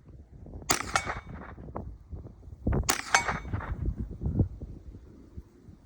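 Two gunshots about two seconds apart, each with a short metallic ring of a steel target being hit.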